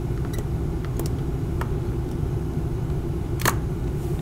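A steady low rumble of room noise. Over it come a few faint ticks and one sharper click about three and a half seconds in, from a long metal cutter blade pressed down on a cutting mat to cut green stuff putty straight.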